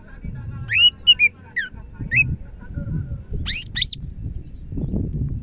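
Cucak ijo (green leafbird) singing: short clear whistled notes that curve up and down in the first two seconds, then two sharp upward-sweeping notes about three and a half seconds in, over a low background rumble.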